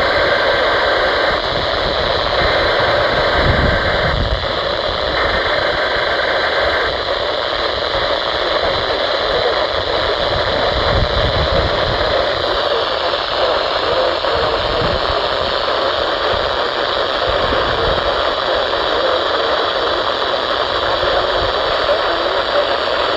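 Heavy static hiss from a weak weather-radio reception. Three faint EAS SAME data-burst header tones come through the static in the first seven seconds, each about a second and a half long. After that there is only steady static.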